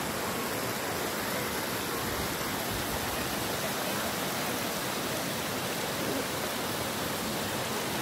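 Steady rush of spring water pouring from outlet pipes and cascading over a concrete spillway into a pool.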